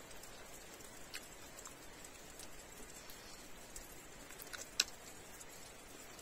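Close-up eating sounds: a man biting and sucking meat off a fried drumstick bone, with scattered wet mouth clicks and smacks, the sharpest just before five seconds in, over a faint steady hiss.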